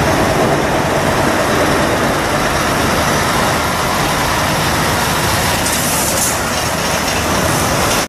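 Scania articulated lorry's diesel engine running as the truck pulls its trailer slowly along, a steady loud rumble with a short hiss about six seconds in.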